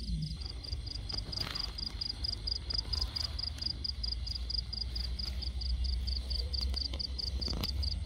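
A cricket chirping in a steady, even pulse of about six high chirps a second, over a low rumble on the microphone.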